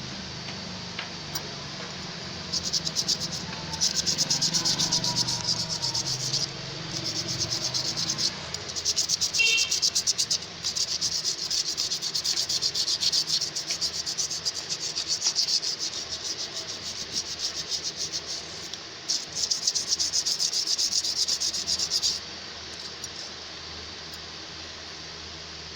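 Fast, raspy abrasive scratching on a scissor blade, in four long bursts with short pauses between.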